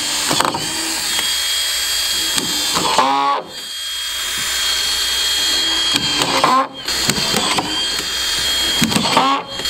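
Cordless collated screw gun running with a steady high whine while driving screws into a roof panel's spline. Its pitch wavers as each screw goes in, and it stops briefly three times, about every three seconds.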